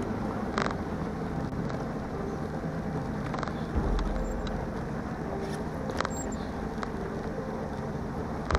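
Bass boat's outboard motor running steadily, a low continuous rumble, with a couple of low thumps and a few short clicks.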